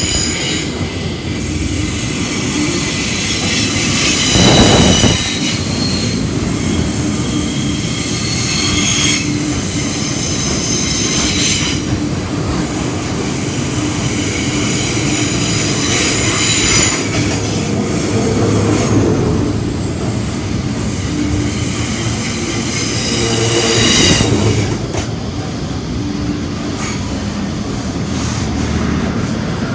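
Long freight train's wagons rolling past at close range, with a steady rumble and rail clatter. High-pitched wheel squeal whines in and out several times as the wheels pass.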